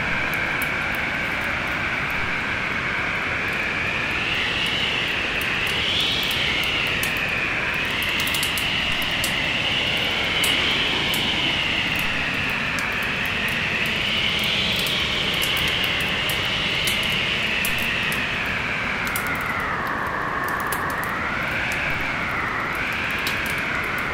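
Storm wind howling, its whistling pitch slowly rising and falling over a steady rush, with frequent sharp crackles from a wood fire.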